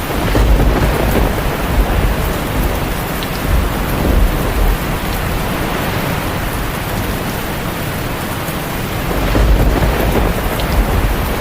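Steady heavy rain with deep, rolling thunder rumbling, swelling as it begins and again near the end.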